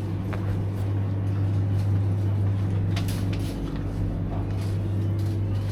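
Steady low electrical hum of supermarket refrigerated dairy display cases, with a few faint clicks and knocks over it.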